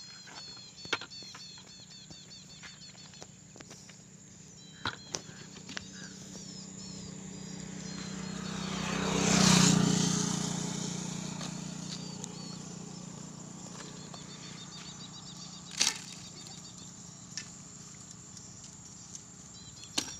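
A motor vehicle passes along the road: its engine and tyre sound builds over a few seconds to a loud peak about halfway through, then slowly fades away. Faint bird chirps and a few sharp clicks are heard around it.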